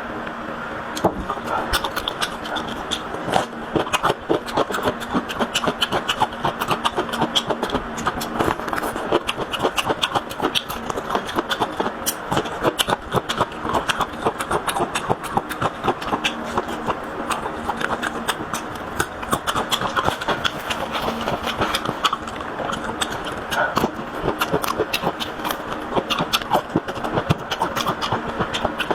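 Close-up chewing and mouth sounds of someone eating meatballs: a steady stream of wet smacks and clicks, with a faint steady hum underneath.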